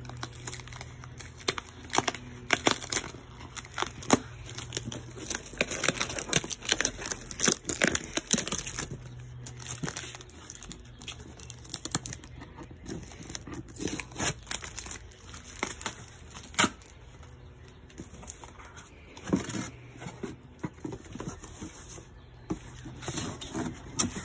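Tape being peeled and ripped off a cardboard box: irregular rips and crackles, busiest in the first ten seconds and returning in short clusters later, with crinkling as the loose tape is handled.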